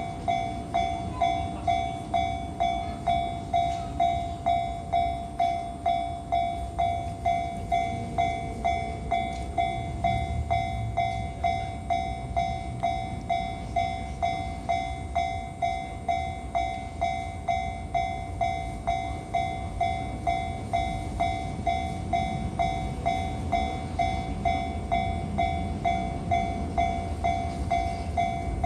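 Japanese level-crossing warning bell ringing in even, rapid strokes, about one and a half a second. Under it is the low running noise of a freight train hauled by a JR Freight EH200 electric locomotive, passing over the crossing.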